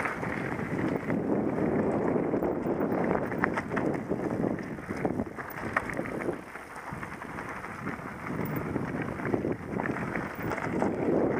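Wind rushing over the microphone together with the rumble and rattle of a mountain bike riding down a rocky dirt singletrack, with many small clicks and knocks from stones and the bike. It dips quieter for a moment a little past halfway.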